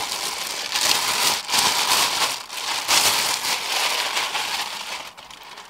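Thin HDPE plastic bag crinkling and rustling as a car head unit is pulled out of it, dying away about five seconds in.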